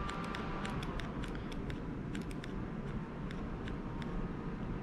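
Faint, irregular small clicks and ticks from a Glock 43 pistol being handled while its aftermarket drop-in trigger is slowly pressed through its take-up, dry-firing with no shot.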